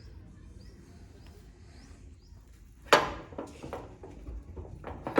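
Faint, short bird chirps repeating every half second or so, then a loud sudden clatter about three seconds in that rings briefly, and another at the very end.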